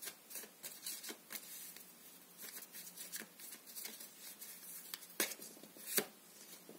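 Tarot cards being shuffled and handled: a string of soft, irregular rustles and clicks, with two louder card clicks about five and six seconds in.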